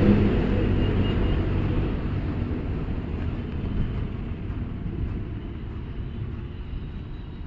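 A passing motor vehicle's engine rumble, loudest at the start and fading away steadily as it moves off.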